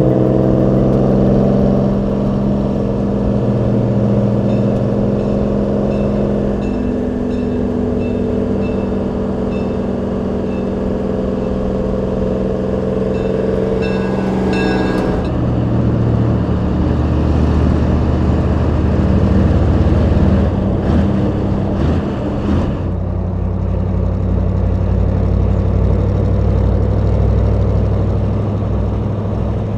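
Semi-truck engines running steadily at highway cruising speed, with tyre and wind noise. The engine note changes abruptly about 7, 15 and 23 seconds in as the sound switches from one truck to another.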